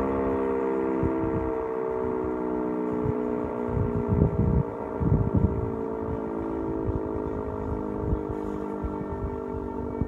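Sentry 10V outdoor warning siren sounding its steady alert tone: a chord of held pitches that sags slightly lower over the seconds. Low rumbles break in about four and five seconds in, the loudest moments.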